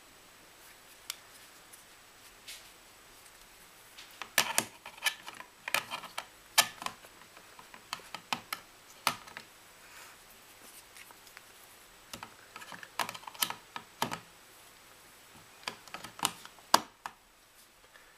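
Plastic clicks and taps as an HTC Sensation XE phone is handled and slotted into its KiDiGi desktop cradle dock, coming in several irregular clusters, with the sharpest click near the end.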